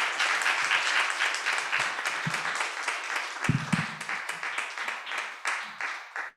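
Audience applauding: dense clapping that tapers slightly, then cuts off suddenly at the end.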